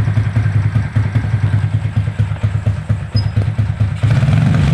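Motorcycle engine with a 57 mm big-bore block and an ORBR aftermarket 'chicken pipe' exhaust, idling with an uneven, pulsing exhaust beat. About four seconds in, it turns into a steadier, louder note.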